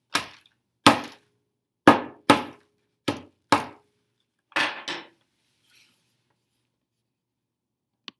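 A hammer striking a block of dry ice wrapped in a brown paper bag, about seven sharp blows over the first five seconds, then stopping.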